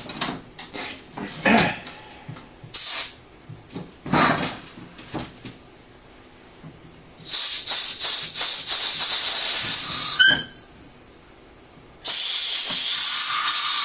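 A few metallic clanks and knocks from the steel scissor-lift linkage, then pressurised air hissing out of the lift's valve and line in two long spells, the first about seven seconds in and the second about twelve seconds in and running to the end. A short rising squeak sounds as the first hiss stops.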